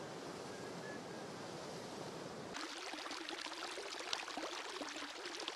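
Steady background noise with no clear source, which cuts abruptly about two and a half seconds in to a thinner, crackling hiss with scattered clicks.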